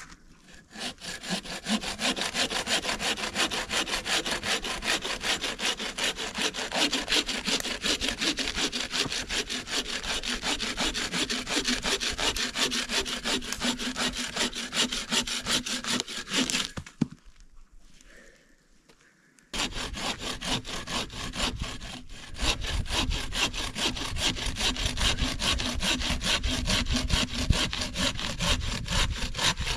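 Hand saw cutting through a dry log in steady, rapid back-and-forth strokes. It stops for a couple of seconds a little past halfway, then starts again.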